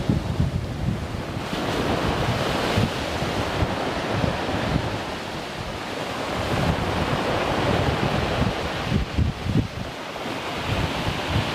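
Rough sea surging and breaking in white water against rocks, with gusts of wind rumbling on the microphone.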